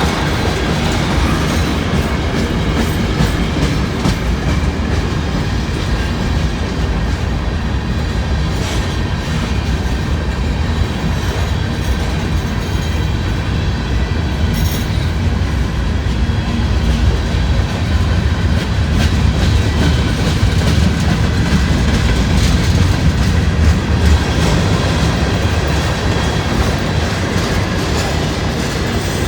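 Freight cars of a long CSX train rolling past: a steady rumble of steel wheels on rail with clickety-clack over the rail joints and faint steady wheel squeal.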